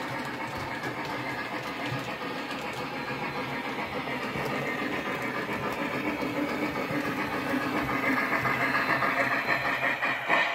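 Lionel LionChief Plus 2.0 O gauge model steam locomotive running, its onboard sound system playing a continuous steam chuff. The chuff grows a little louder over the last few seconds, and there is one short sharp sound near the end.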